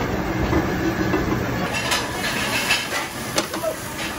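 Raw shrimp going into a pan of hot olive oil on a gas burner and sizzling from about one and a half seconds in, with a few clinks and clatters of the pan. A steady drone of commercial kitchen noise runs underneath.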